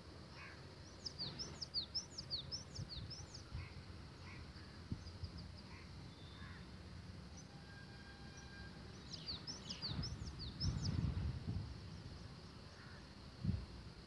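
A bird calling: two runs of quick, sharp, high notes, about a second in and again near nine seconds, each run about a dozen notes. A low rumble comes in around ten to eleven seconds.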